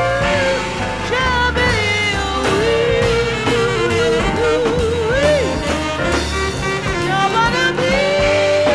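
Jazz-style song playing: a melody line wavering with vibrato over a walking bass.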